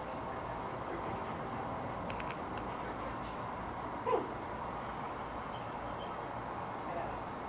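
Crickets chirring steadily in a high, even drone over a constant low background hum. About four seconds in, a short sound slides down in pitch.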